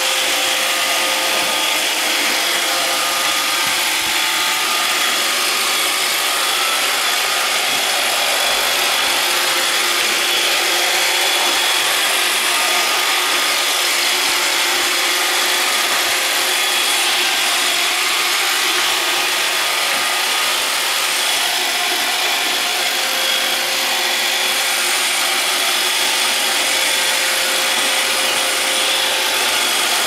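iRobot Roomba 560 robot vacuum running on a tile floor: the steady whir of its vacuum motor and spinning brushes, with a constant high whine.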